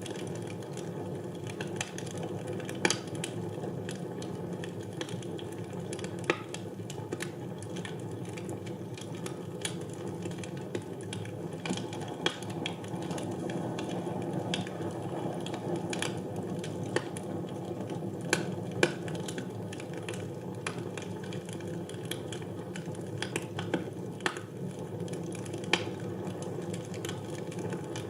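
Wood fire burning in a fireplace: a steady low rush of flames with irregular sharp crackles and pops, a few of them loud snaps.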